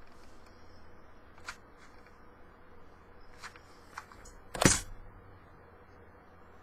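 Craft supplies handled on a tabletop: a few light clicks and taps, then one louder knock about two-thirds of the way in, as of something set down.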